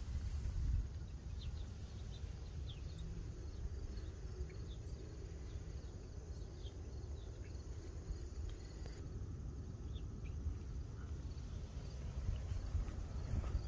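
Insects trilling steadily in one high, continuous tone, over a constant low rumble, with a few short high chirps scattered through.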